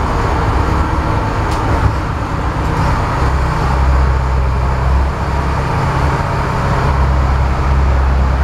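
Vessel's engine running with a steady low drone, heard from inside the wheelhouse; the low hum grows stronger about three seconds in and again near the end.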